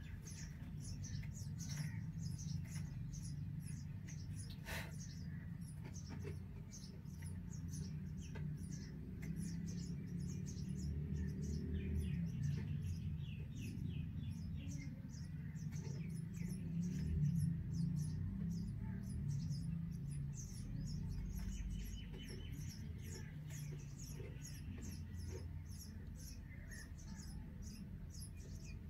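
Indian robin nestlings giving thin, high-pitched begging peeps, repeated a few times a second without a break, over a steady low rumble.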